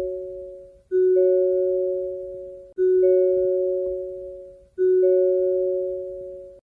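Hyundai car's door-open warning chime: a two-note ding-dong, low note then a higher one, repeating about every two seconds with each ring fading. It cuts off suddenly near the end.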